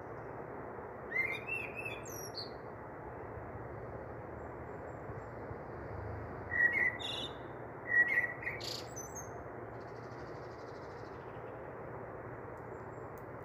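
A small bird chirping in three short bursts of quick, high calls over a steady hiss.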